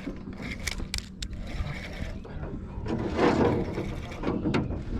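Fishing reel being cranked against a big hooked fish, its gears and clicker ticking.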